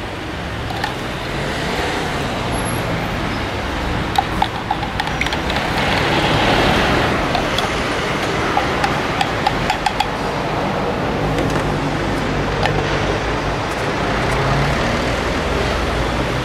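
Road traffic noise with vehicle engines running, swelling as a vehicle passes about six to eight seconds in. A few light clicks sound over it, twice near a third of the way in and in a quick run past the middle.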